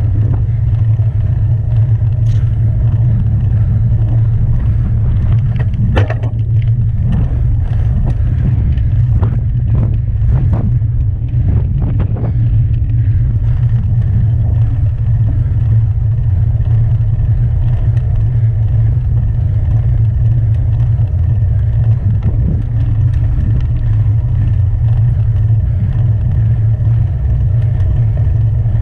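Wind buffeting the microphone of a handlebar-mounted action camera on a moving road bike, a loud steady low rumble mixed with tyre noise on asphalt. A few sharp knocks and rattles come about six seconds in and again around ten to twelve seconds.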